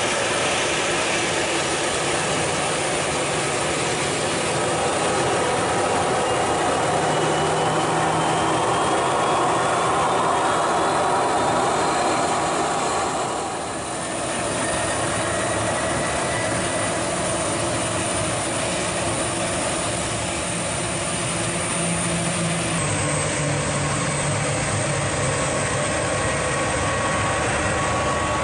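Boeing 737 airliner jet engines running: a steady rush with a thin whine above it that slowly rises in pitch in the first half. The level dips briefly about halfway, and later steady high engine whines sound over the rush.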